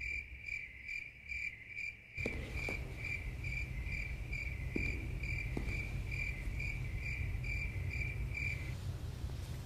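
Crickets chirping: one high, evenly repeating chirp at about two to three chirps a second that stops near the end. It is the stock 'awkward silence' cricket sound effect. A low steady rumble comes in about two seconds in.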